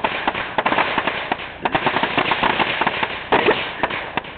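Firecrackers going off on the ground: a rapid, irregular run of sharp crackling pops.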